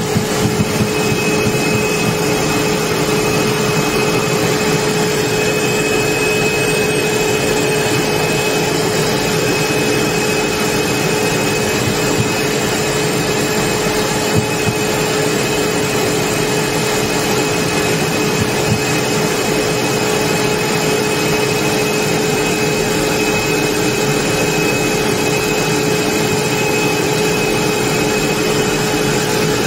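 Military jet engine running steadily at taxi power: a loud, even rush with a steady hum and a high whine over it.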